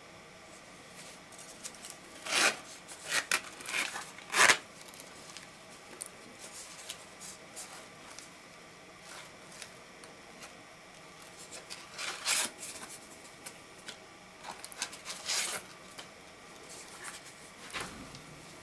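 Metal zipper on a faux-leather zip-around card holder being pulled open in a few short rasping strokes, about two to four seconds in. Later come more brief rasps and rubbing as the case and its pleated card slots are handled.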